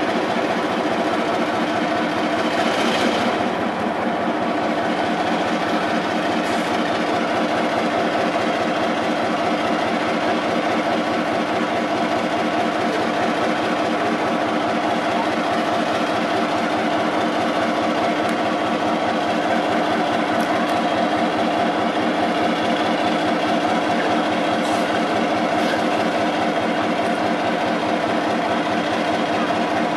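EMD 12-567C twelve-cylinder two-stroke diesel engine of a 1956 NOHAB-EMD locomotive idling steadily, with an even, unchanging beat. A short hiss comes about three seconds in.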